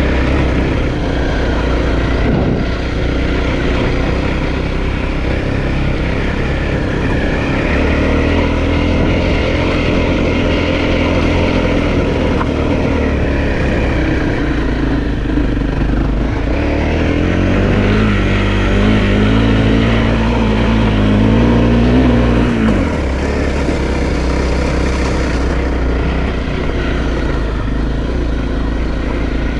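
Honda CRF250 dirt bike's single-cylinder four-stroke engine running under way on a trail. From about halfway through, the revs climb steadily for several seconds, then drop off suddenly as the throttle is closed.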